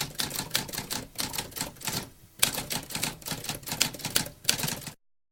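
Typewriter typing: a fast run of key strikes, about six a second, with a short pause a little after two seconds in, then cutting off abruptly about five seconds in.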